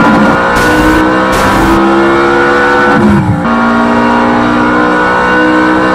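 Onboard sound of a 1/10 short course RC race truck's electric motor whining at speed, its pitch dipping about three seconds in as it lets off, then climbing again. Short hissing bursts of tyres and dirt come in the first two seconds.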